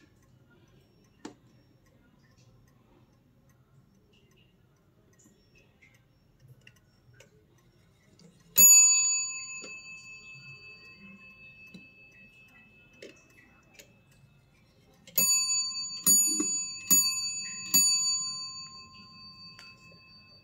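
Zenith Le Locle pendulum mantel clock striking: a single ringing strike about eight seconds in, then four strikes about a second apart near the end, counting four o'clock as the hands are set, each note ringing on and fading.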